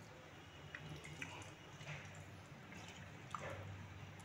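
Faint wet squishing and a few soft drips as hands squeeze and pull apart raw katla fish fat in a steel bowl of water.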